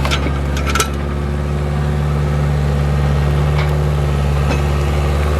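New Holland LX565 skid steer's engine running steadily at a constant speed. A couple of sharp clanks sound near the start, the louder one just under a second in.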